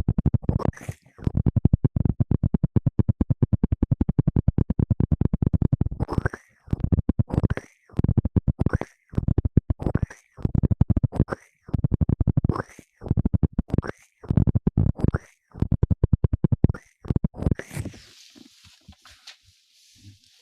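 Rapid rhythmic scratching right at the microphone, an ASMR trigger in the manner of a hair wash, about a dozen strokes a second. It runs unbroken at first, then comes in bursts of about a second with short gaps, and stops a couple of seconds before the end.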